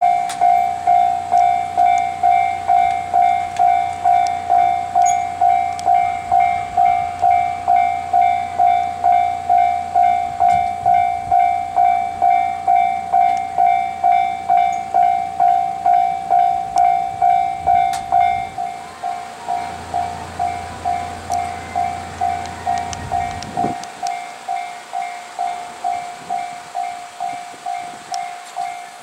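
Japanese level-crossing warning bell ringing in a steady pulse, about two strikes a second. It drops sharply in loudness about 18 seconds in and keeps ringing. A low hum runs beneath it through the first half and again briefly later.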